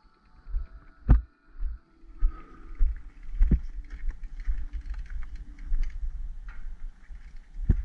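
Mountain bike rolling over a dry dirt trail: a rough rumble of knobby tyres on dirt and gravel with small rattles of the bike, and sharp knocks as it hits bumps about a second in, midway, and near the end.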